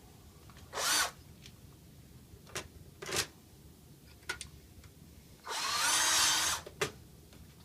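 Handheld electric screwdriver running in short bursts: a brief whirr about a second in, another about three seconds in, and a longer one of over a second near the end, with a few small clicks between.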